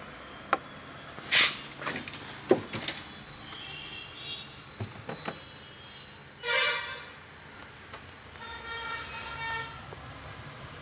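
Several knocks and clicks with a short sharp rustle about a second in, then two short pitched toots, the second one longer, a couple of seconds apart.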